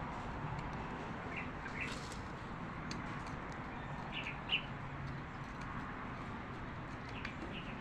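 Steady background hiss with a few short bird chirps, in pairs about a second and a half in and again past four seconds, and a single sharp click just after.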